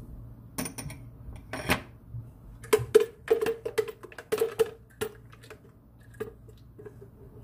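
Kitchen utensils clinking and knocking against dishes, a quick run of sharp clinks, some with a short ringing tone, thickest from about three to five seconds in, over a low steady hum.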